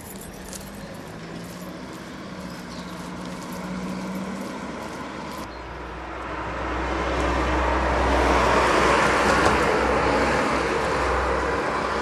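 Road traffic: a car engine running steadily, then a car driving past with tyre and engine noise that swells to its loudest about two-thirds of the way through and eases off.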